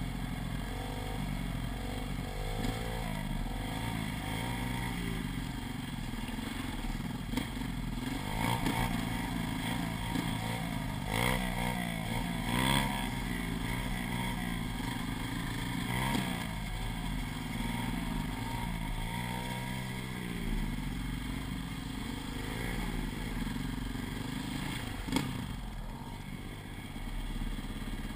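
KTM off-road motorcycle engine heard from the rider's seat, its revs rising and falling over and over as the throttle is worked, with occasional sharp clattering knocks from the bike over rough ground.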